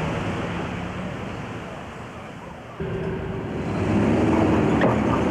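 City street traffic noise, a steady rumble and hiss that fades, then cuts abruptly to a louder traffic hum about three seconds in and swells again a second later.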